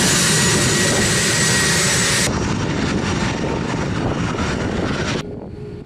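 Twin General Electric TF34 turbofan engines of A-10 Thunderbolt II aircraft running, loud with a steady high whine. The sound drops off abruptly about two seconds in and again near the end.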